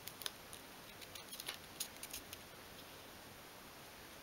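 Faint crackling and small clicks of masking tape being handled and pressed down along the edge of a small wooden model boat hull, bunched in the first two and a half seconds and then stopping.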